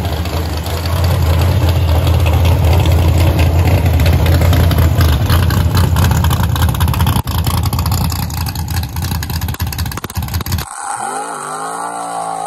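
Classic Camaro drag car's engine running loud and lumpy at idle with a dense, rapid pulsing. About eleven seconds in it drops away, then revs with a rising pitch.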